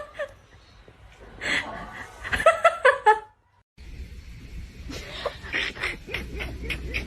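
A person laughing in short pulses. After a cut it is followed by a steady low rumble with scattered short clicks.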